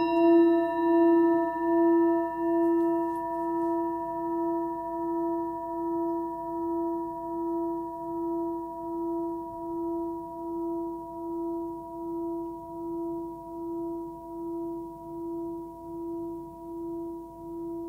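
Hand-forged singing bowl, 14.9 cm across and tuned to E at about 335 Hz, ringing after a mallet strike. It holds one steady tone with fainter higher overtones, and its loudness swells and fades in a slow, even wobble as it dies away gradually.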